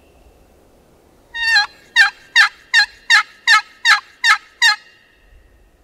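A series of nine loud, evenly spaced turkey yelps, about two and a half a second, the first drawn out a little longer than the rest: hen-style yelping of the kind used to call in a gobbler.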